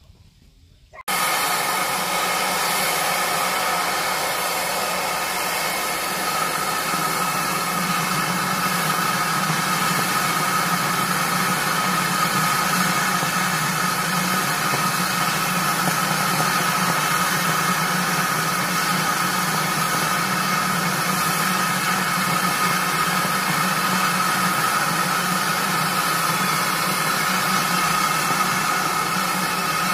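Railway locomotive running steadily: a continuous loud hiss with a steady high tone and a low hum, cutting in abruptly about a second in.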